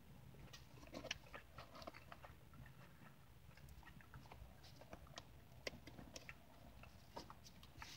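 Faint, irregular clicks of a person chewing a mouthful of Dutch apple crumb pie close to the microphone.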